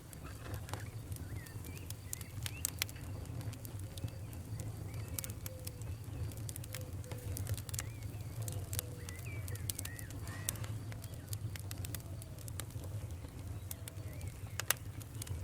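Wood fire crackling in a fireplace: frequent sharp pops and snaps over a low steady rumble of the flames, with faint short squeaky chirps through the middle.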